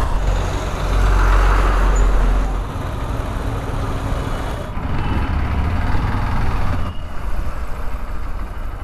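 Hero Xpulse 200's single-cylinder engine running while the bike rides slowly through city traffic, mixed with road and surrounding traffic noise, heard from the rider's position. A low rumble is strongest for the first two and a half seconds, then eases slightly.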